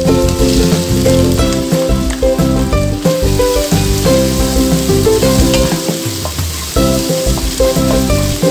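Sliced onions sizzling as they fry in hot oil in a pan and are stirred with a wooden spatula, under background music with a steady beat of changing notes.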